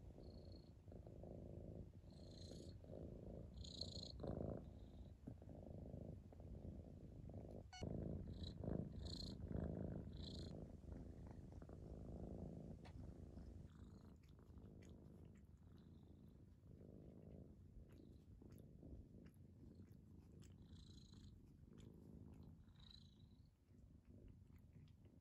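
Domestic cat purring close up, a soft, fast-pulsing rumble that is loudest about eight to ten seconds in and fades somewhat after that, with a few short high squeaks on top.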